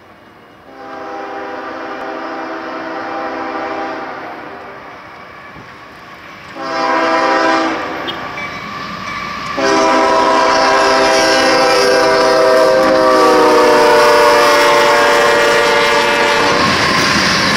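CSX freight locomotive's multi-chime air horn sounding for a grade crossing: a long blast, a second long blast, then a long held blast whose pitch drops as the locomotive passes. The horn stops near the end, and the rumble of the passing freight cars takes over.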